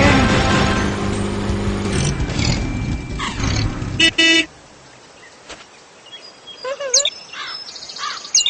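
Cartoon sound effects: a loud, busy vehicle sound with a falling pitch sweep, then two short car-horn toots about four seconds in, then birds chirping near the end.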